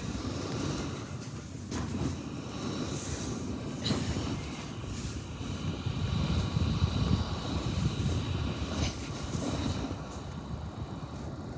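Steady mechanical rumble with a faint high whine, its loudness swelling and easing a little.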